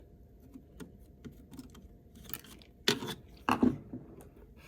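Small hard-plastic parts of a car radio panel being handled, giving light scattered clicks and scrapes, with two louder clatters about three and three and a half seconds in.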